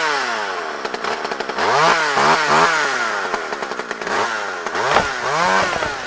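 Chainsaw engine revving up and dropping back several times, its pitch rising and falling with each rev.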